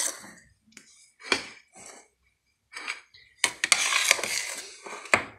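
A kitchen utensil knocking and scraping against a dish while cream is spread over a cake: a few short clinks, then a longer stretch of scraping about three and a half seconds in.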